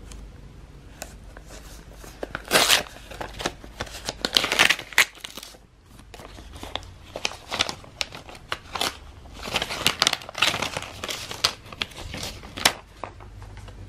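A paper envelope being torn open by hand, with irregular ripping and crinkling of paper in short bursts.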